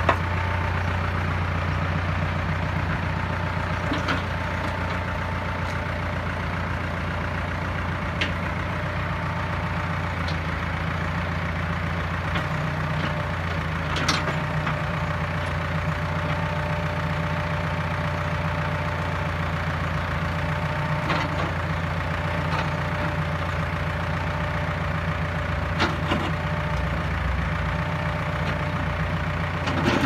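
Engine idling steadily to power a Foster DP2 backhoe, its pitch rising slightly about twelve seconds in. Over it come a handful of short, sharp metallic clicks and knocks from the moving steel boom and bucket.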